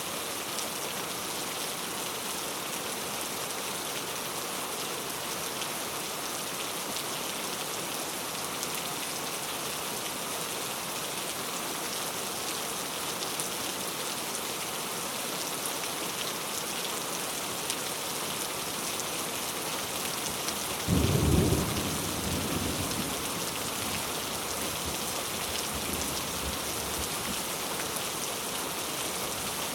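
Steady heavy rain falling on a surface. About two-thirds of the way through, a clap of thunder cracks loudly for about a second, then rumbles and fades over a few seconds.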